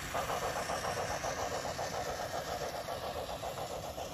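Electric toy train running along plastic track: a steady motor whirr with a fast, even clatter of about eight beats a second.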